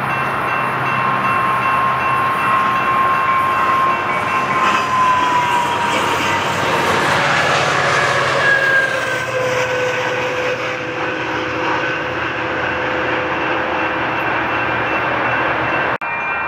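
Train passing close by, a steady rumble of wheels on rail with whining tones that slide down in pitch about halfway through as it goes past. It cuts off abruptly near the end.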